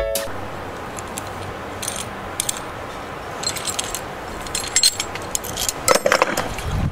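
Scattered metallic clinks and rattles of a bar-and-yoke flare tool being handled and worked to flare the end of copper propane tubing. The clinks come a few at a time, loudest near the end.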